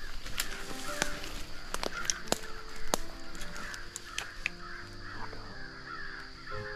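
Harsh, crow-like calls repeating over a steady high insect drone, with sharp snaps of twigs and leaves underfoot.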